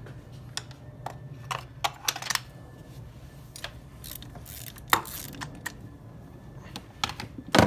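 Hand tools and parts being handled: a scatter of light metallic clicks and clinks, with a louder knock near the end, over a steady low hum.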